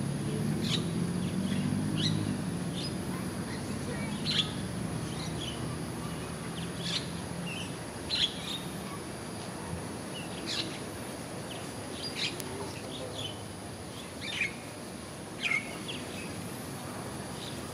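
Birds chirping in short, sharp calls every second or two. A low hum runs under the first half and fades out.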